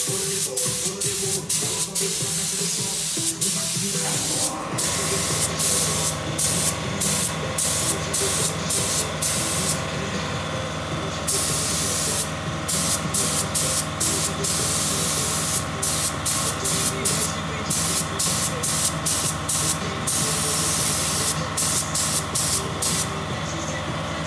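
Paint spray gun hissing in repeated bursts, cut off briefly many times as the trigger is let go between passes. From about five seconds in, a steady hum of lower tones runs underneath.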